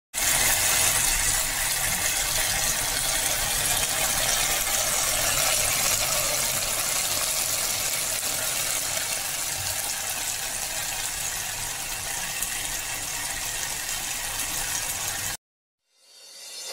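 Stir-fried tofu and vegetables sizzling in oil in a frying pan, a steady hiss that cuts off suddenly near the end.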